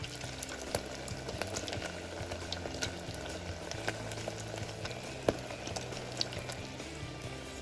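Pastry money bags deep-frying in a pot of hot oil: steady bubbling and crackling, with a sharp pop about five seconds in.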